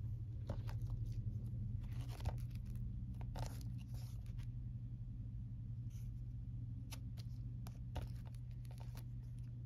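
Hands handling a Blu-ray case in its cardboard slipcover: scattered rustles and small clicks, busiest in the first few seconds and sparser later. A steady low hum runs underneath.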